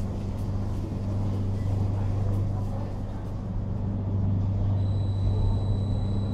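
Steady low hum of a stationary NSB Stadler FLIRT electric multiple unit waiting at the platform, its onboard equipment running. About five seconds in, a thin, high steady tone sets in.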